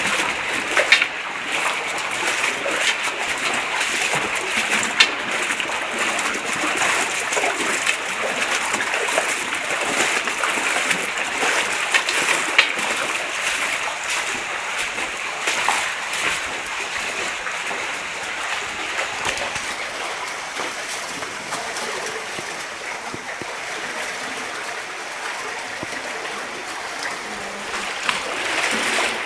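Shallow river water rushing steadily over stones, with scattered splashes of feet wading through it. The rush gets a little softer about twenty seconds in.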